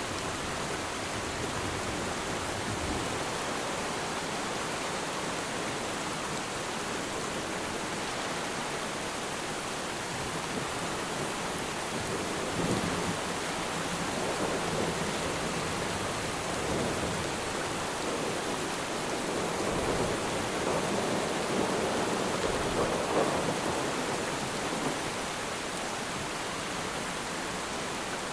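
Steady rain falling on water, an even hiss that swells louder twice in the second half.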